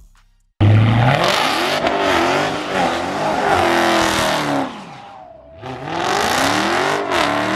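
Dodge Charger doing a burnout: the engine revs up and down while the spinning rear tyres squeal on the pavement. It cuts in suddenly just after the start, dies away about five seconds in, and picks up again a second later.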